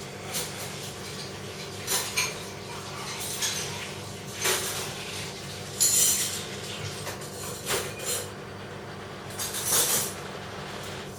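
Metal clinking and rattling in short, irregular bursts, the loudest about halfway and near the end, over a steady low hum.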